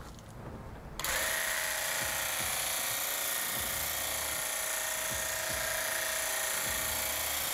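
Graco TC Pro cordless handheld airless paint sprayer running with the trigger held, its newly fitted three-stage pump pushing exterior latex paint out through the tip with a steady whine. It starts about a second in and cuts off abruptly just before the end.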